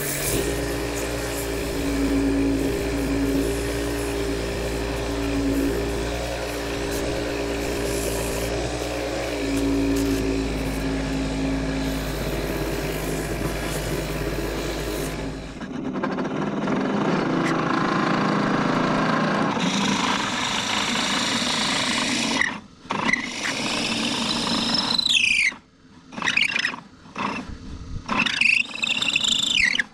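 A small wood lathe runs with a steady hum while sandpaper is held against the spinning hardwood vase blank. Later a drill bit is fed into the end of the spinning piece in short stop-start pushes, each giving a high whine that falls in pitch.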